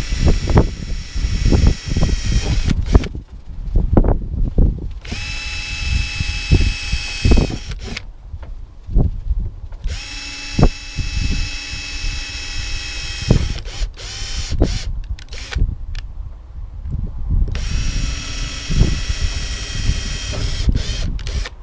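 Power drill boring four pilot holes for self-tapping screws into the van's sheet-metal body: four runs of a steady whine a few seconds each, with short pauses between. Wind buffets the microphone throughout.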